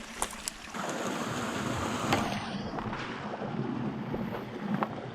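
Rushing creek water, a steady hiss that swells about a second in, with a few sharp clicks over it.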